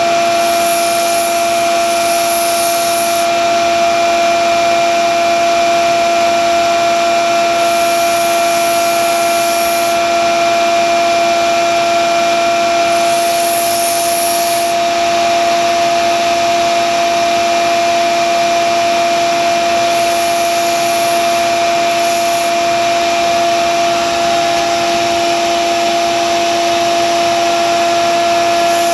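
Grizzly belt and disc sander running with a steady motor hum while a steel kitchen knife blade is ground on the belt, with a high grinding hiss in four passes of two to three seconds each. The old Wüsthof blade is being reground to repair its tip and edge.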